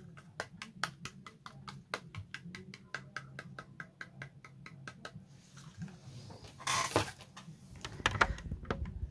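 Light, irregular clicks, two or three a second, over a low steady hum; then rustling and knocks of the phone that is recording being handled, with a louder scuffle about seven seconds in.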